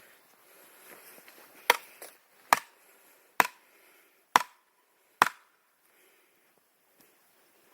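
Five sharp chopping blows struck on wood, about one a second, each with a short ringing note.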